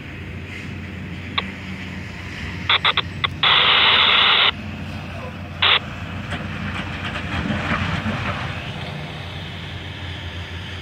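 A radio gives short crackling bursts and about a second of static. Then a box truck drives across the wet crossing, its engine and tyres on the wet road swelling and fading over a few seconds.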